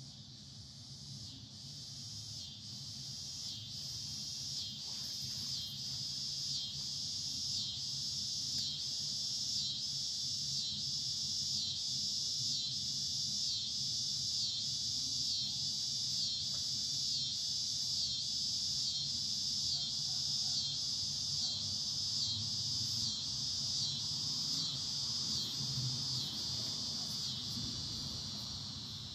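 A high, pulsing insect buzz, beating about twice a second, that builds up over the first several seconds and fades away near the end.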